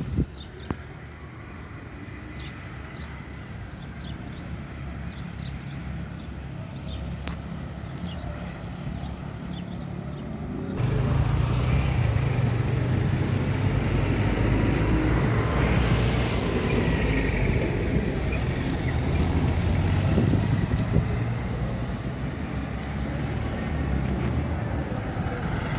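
Motor vehicle engine running steadily with road noise, jumping suddenly louder about eleven seconds in.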